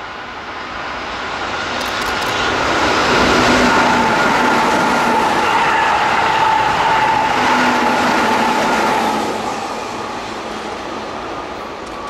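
Keihan limited express electric train running through the station without stopping: the sound of wheels on rail and a steady motor whine swells as it approaches, holds while the cars pass, and fades about nine seconds in.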